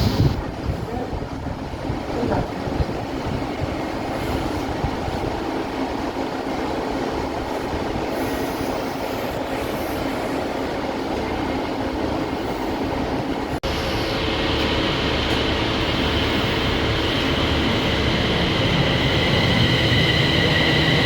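A train running, a steady rumble on the rails. After a brief break about two-thirds of the way through, a steady high whine joins the rumble.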